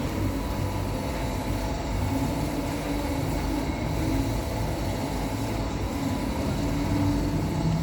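Large-format direct textile printing machine running steadily while printing banner flags, with a faint regular change about every two seconds.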